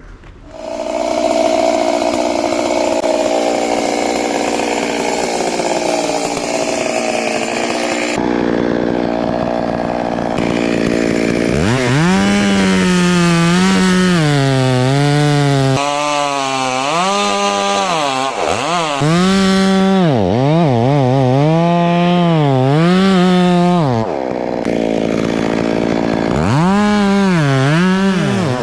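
Stihl chainsaw running at high revs, starting under a second in. From about 12 seconds on it is throttled up and down again and again, its pitch rising and falling with each rev.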